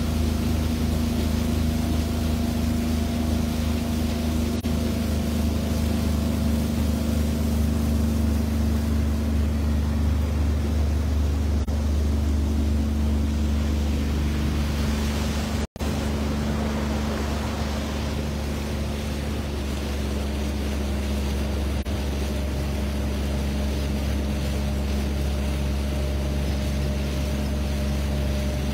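Motorboat engine running steadily under way, a low steady drone, with the rush of water and wake along the hull. The sound cuts out for an instant about halfway through, then carries on a little quieter.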